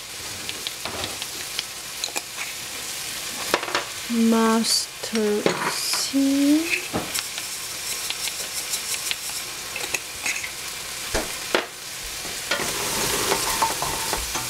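Cut eggplant frying and sizzling in a stainless steel pot, with scattered clicks and scrapes as mustard seed is shaken in from a jar and a wooden spatula stirs the pieces.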